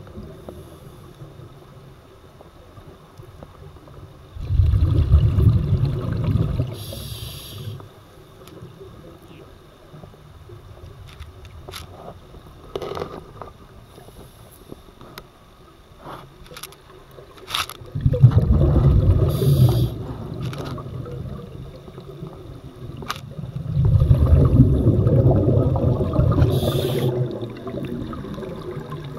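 Scuba diver breathing through an open-circuit regulator underwater: three long bubbling exhalations of two to three seconds each, with short hisses from the regulator. Quieter stretches with scattered faint clicks lie between the exhalations.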